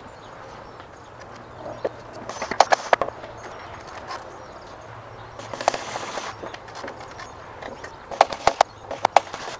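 Knocks and clatter on the wooden playset fort as it is worked on, coming in small clusters a few seconds apart, with a brief hissing rush near the middle.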